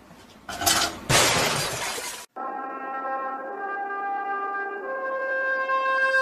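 A loud crash about half a second in, running on as a rough noise for over a second and cutting off abruptly. After a brief gap, brass music plays long held notes.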